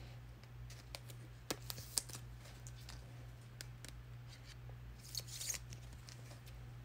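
Faint handling of trading cards and their packaging: a few light clicks and taps and a brief crinkly rustle about five seconds in, over a steady low hum.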